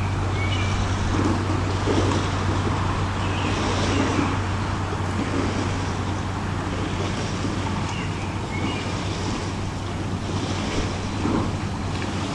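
Steady hiss with a low electrical hum under it, plus a couple of faint short squeaks, one near the start and one about two-thirds of the way through.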